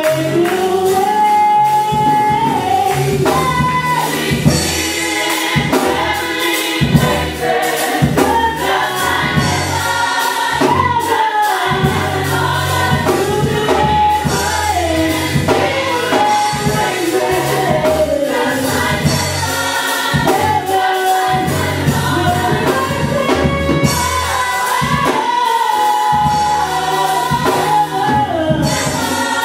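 Gospel worship music: a choir singing a melody over a band with drums and a steady beat.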